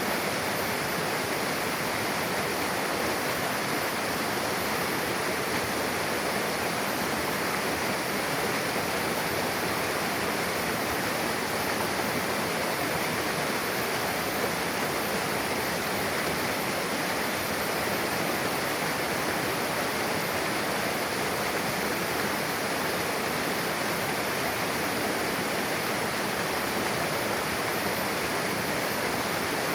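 Mountain river water rushing steadily over rocks where two streams join, a constant, even roar of flowing water.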